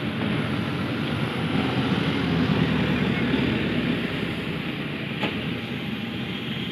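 Airport passenger bus and a minivan driving past close by: steady engine and tyre noise that grows a little louder in the middle as the bus goes by, then eases as it pulls away.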